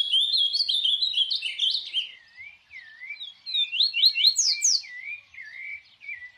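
Chirping alarm sound effect: rapid, high, bird-like electronic chirps repeating several times a second, louder in the first two seconds and again around four to five seconds in.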